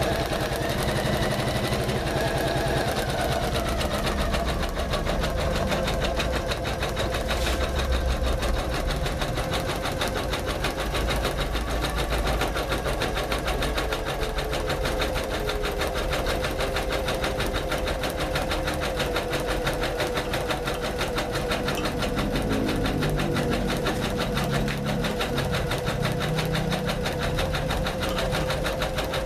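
Janome MC500E computerized embroidery machine stitching steadily: a rapid, even needle rhythm over a steady motor hum.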